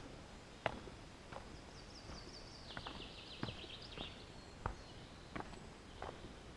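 Walking footsteps, about one every two-thirds of a second. In the middle a songbird sings one quick trilled phrase of about two and a half seconds that steps down in pitch.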